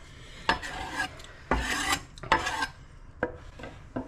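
A knife blade scraping across a wooden cutting board, sweeping chopped parsley off it, in about six rasping strokes of different lengths.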